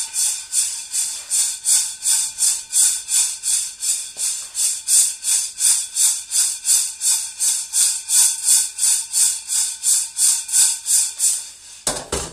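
Freshly roasted coffee beans rattling in a ceramic-coated frying pan as the pan is shaken and tossed, about three shakes a second. The shaking stops near the end with a single knock.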